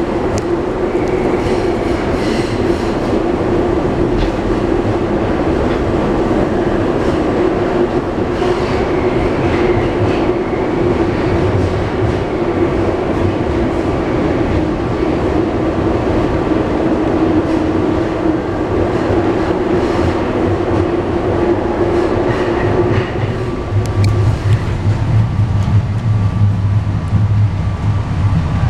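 PATCO subway train heard from inside the car, running at speed with a steady rumble and a steady whine. About three-quarters of the way through the whine fades and a deeper, louder rumble takes over as the train comes out of the tunnel into the open.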